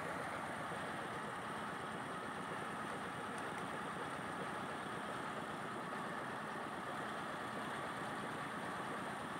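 Mobile truck-mounted rice-milling machine running steadily while milling paddy into rice, a dense, even mechanical noise with no change in speed.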